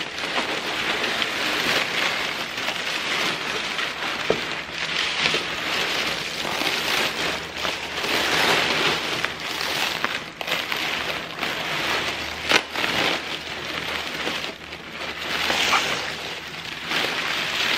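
Honeycomb kraft paper wrap and black crinkle-cut paper shred rustling and crackling as they are pulled out of a cardboard shipping box by hand, with one sharper crackle about two-thirds of the way through.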